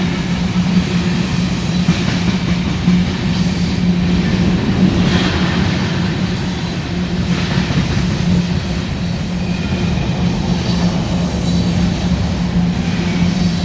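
Long coal train of hopper cars rolling past on the rails, a steady loud rumble with a constant low hum. Brief high wheel squeals come and go every few seconds.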